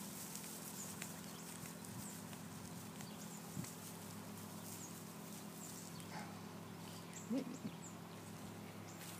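Quiet outdoor background: a steady low hum with faint scattered ticks, and one short rising sound about seven seconds in.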